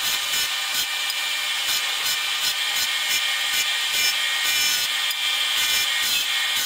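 Delta bench grinder running, its wire wheel brushing a socket-head screw held against it by hand to clean the threads: a steady, loud scratching hiss over the grinder motor's steady hum.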